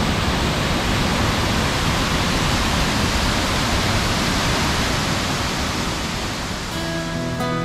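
Steady rushing of a wide waterfall, water pouring over a rock ledge into a plunge pool. Acoustic guitar music comes in near the end.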